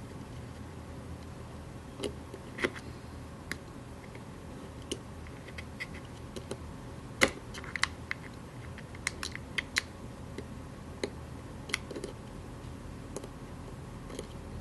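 Scattered small metallic clicks and taps of a screwdriver and grip-panel screws being driven into a 1911-style air pistol frame, the loudest about seven seconds in, over a faint low hum.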